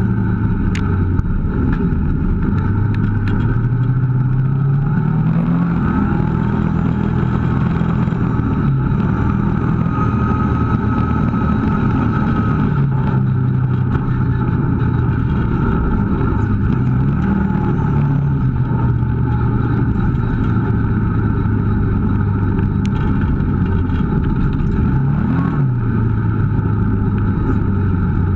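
Kawasaki KVF650 ATV's V-twin engine running as it rides a trail, its pitch rising and falling several times with the throttle.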